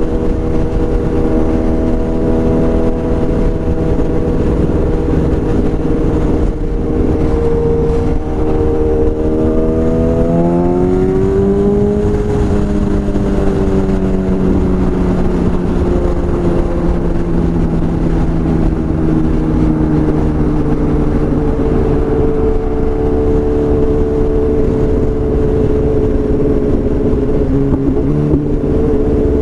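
BMW S1000RR inline-four engine running through a full Akrapovic exhaust, holding a steady pitch. The pitch rises about a third of the way in, then slowly eases down and settles into a steady note again.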